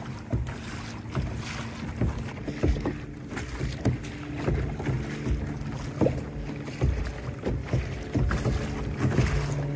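Water slapping and splashing against the plastic hull of a pedal-drive kayak as it is pedalled across choppy open water, in short irregular knocks about once or twice a second, with wind buffeting the microphone.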